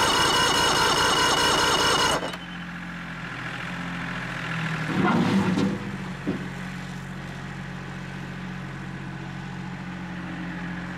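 Mercury 135 hp six-cylinder outboard turned over by its electric starter for about two seconds without firing, cranked with the key to take a compression reading on one cylinder. It then stops, leaving a steady low hum, with a short louder noise about five seconds in.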